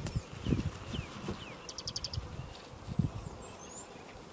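Wild birds calling: several downward-sliding whistles and a quick run of about six short notes about two seconds in. Irregular soft low thumps and rustles sit underneath.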